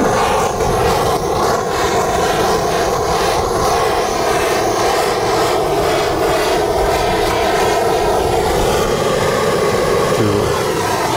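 Electric heat gun running steadily, its fan blowing hot air over bituminous foil patch tape to soften the bitumen so it sticks to the cracked asbestos-cement roof sheet.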